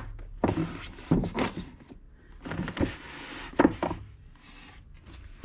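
Manga paperbacks being slid into a row on an IKEA Billy bookshelf: several soft knocks of books against the shelf and each other, with covers scraping as they are pushed in.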